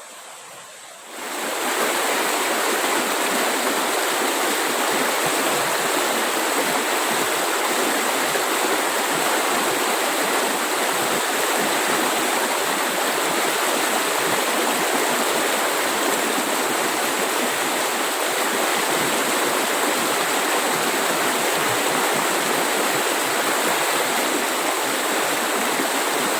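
Rushing stream water: a steady, loud rush that cuts in abruptly about a second in and holds unchanged.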